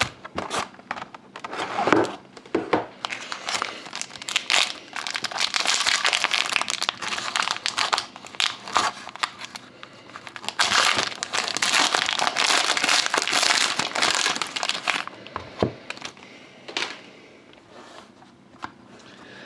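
Foil wrapper of a trading card pack being torn open and crinkled by hand. The crackling is dense and loud from about five to fifteen seconds in, then gives way to a few light clicks as the cards are handled.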